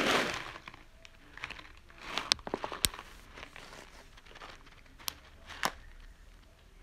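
Plastic grocery packaging crinkling as it is handled in a shopping cart, with a rustle at the start and a few sharp clicks and knocks, the sharpest about three seconds in.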